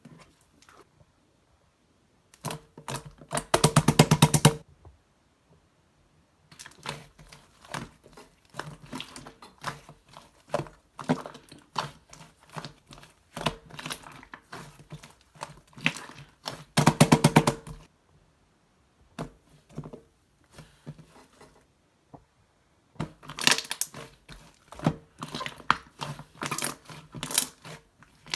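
Bursts of dense small clicks and crinkling close to the microphone, with two faster, louder rattling runs of clicks a few seconds in and about two-thirds through, and short quiet gaps between bursts.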